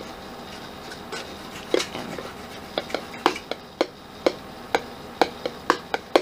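Plastic comb tapping on the metal casing of an optical disc drive: sharp separate taps starting about two seconds in, coming faster toward the end.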